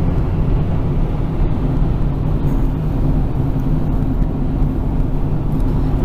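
Car driving along a highway, heard from inside the cabin: a steady low hum of engine and tyre noise.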